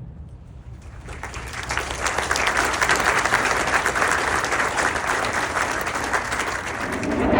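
Audience applauding, building up about a second in and holding steady. Near the end a low rumble starts to rise under it.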